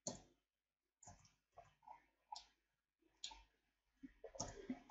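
Sparse, short clicks of a computer mouse and keyboard, coming closer together near the end, over near silence.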